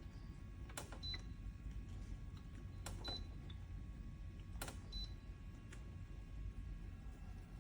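Three sharp clicks a second or two apart, each with a short high electronic beep, over a low steady hum.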